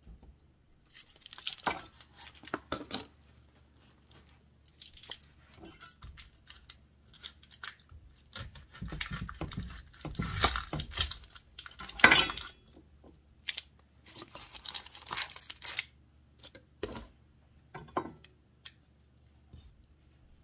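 Kitchen handling noises as an onion is fetched and peeled: irregular rustling and tearing of its dry skin, with light knocks and clinks of a knife and wooden cutting board. The loudest is a clatter about twelve seconds in.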